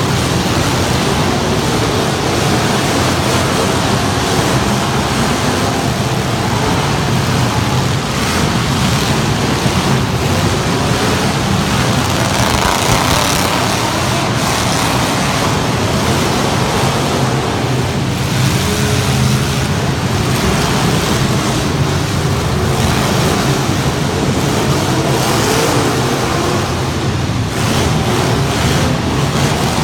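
Loud truck engines running continuously, with a dense wash of noise around them and no pauses.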